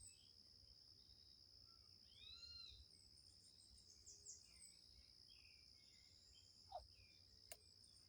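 Faint forest ambience: a steady high-pitched insect drone with scattered high chirps, and a bird giving one arched call about two seconds in.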